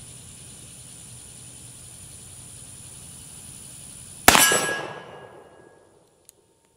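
A single shot from a Pietta 1858 Remington .44 black powder revolver about four seconds in, loud and sudden with a long ringing tail. Crickets chirp steadily before it.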